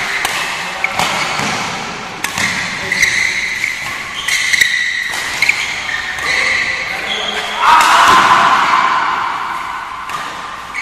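Badminton doubles rally in a hall: sharp racket strikes on the shuttlecock about once a second, and court shoes squeaking on the court mat. A loud burst of voices comes about eight seconds in and fades over a couple of seconds.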